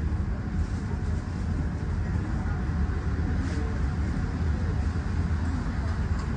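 Steady low hum and rumble of an Alstom Citadis X05 light rail tram standing at a stop, heard from on board.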